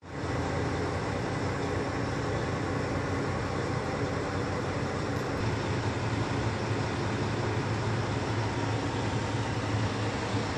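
Semi truck's diesel engine idling steadily, heard from underneath the truck, with a dense even hiss over the low engine hum.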